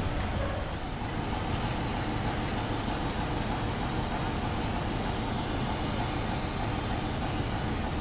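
British Rail Class 47 diesel-electric locomotive running slowly, its Sulzer twin-bank V12 diesel engine giving a steady drone.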